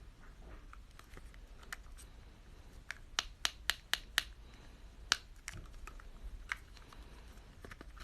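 Scattered light clicks and taps from handling a small homemade fidget toy, with a quick run of about five sharp clicks between three and four seconds in.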